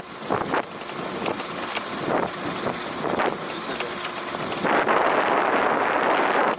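Wind rushing over the microphone of a moving bicycle, with scattered knocks and rattles from the ride and a thin, steady high-pitched whine. About three-quarters of the way in, the wind rush turns louder and steadier.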